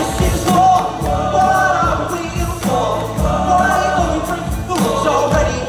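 Live band with drums and electric guitar playing while a group of men sing together, with a steady beat.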